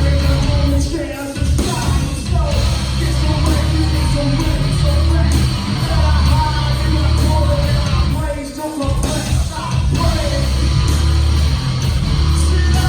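A live rock band playing loud, with drums, bass and guitar under a vocalist singing and shouting. The band drops out briefly about a second in and again about two-thirds of the way through.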